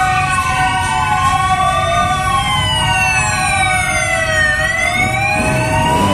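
Several sirens wailing at once, their pitches rising and falling slowly and crossing one another, with a few steady tones held under them. Beneath them is the low running of motorcycle engines from a passing parade of bikes.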